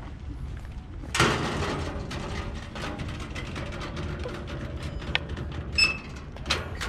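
Footsteps and handling knocks at a metal gate, then an electronic keycard reader beeps once, briefly, near the end, followed by sharp clicks at the gate.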